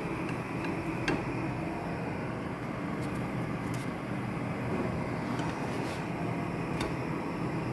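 Steady low rushing noise from a lit gas hob with pancakes cooking in frying pans, with a few faint light clicks of a spatula against the pans.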